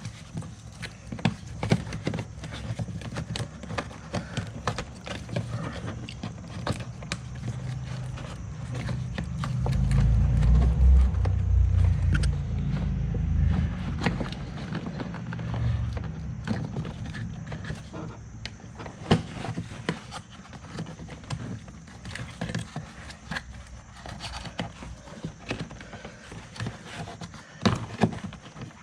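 Irregular clicks and taps of locking needle-nose pliers and the plastic and metal parts of a BMW E39 inner door handle mechanism as the door-release cable is worked into place, with a low rumble for several seconds in the middle.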